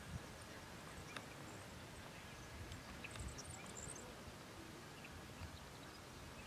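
Faint outdoor ambience: an uneven low rumble, with a few small clicks and a cluster of faint high chirps about three seconds in.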